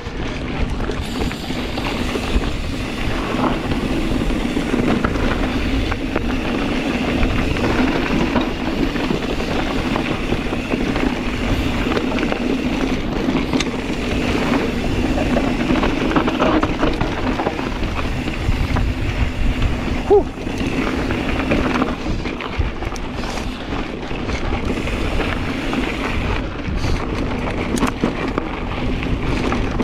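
Kona Process 134 mountain bike riding a rough dirt trail: steady tyre rumble and chatter over rocks with wind on the camera mic, and a sharp clack about twenty seconds in.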